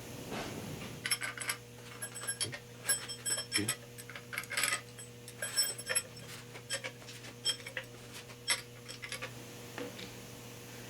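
Light metallic clicks and clinks, irregular and several a second at times, as the Triumph TR6's rocker shaft assembly is handled and fitted onto the engine's cylinder head. A faint steady hum lies underneath.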